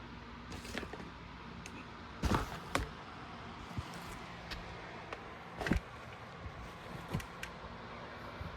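Scattered knocks and clicks, about eight over the stretch, the loudest a double knock about two seconds in, over a low steady hum.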